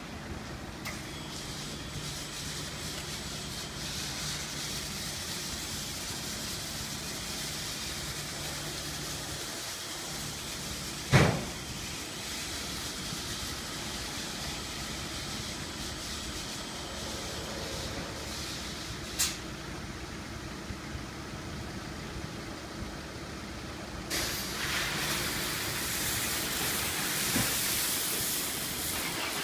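Belanger Freestyler rollover car wash running, with a steady motor hum and spray hiss. A sharp knock comes about eleven seconds in, the loudest sound, and a smaller click follows near twenty seconds. Near the end a louder rush of spraying water and spinning wash brushes starts up.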